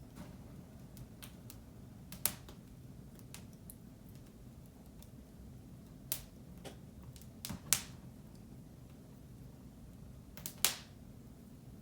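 Wood fire in a fireplace crackling: scattered sharp pops and ticks, four of them louder, over a low steady rumble.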